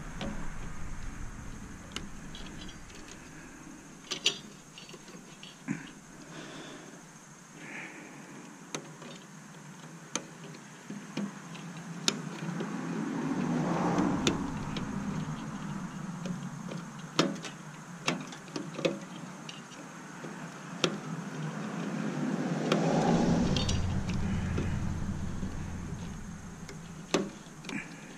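Scattered sharp metallic clicks and clinks of hand tools and loose parts on a stainless steel bread steamer being dismantled. Twice a broad rushing sound swells up and fades over a few seconds, like a vehicle passing.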